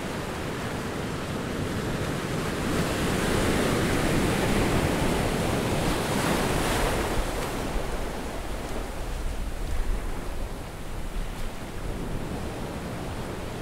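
Surf breaking on a sandy beach: a wave swells to its loudest a few seconds in, then eases off into a softer wash.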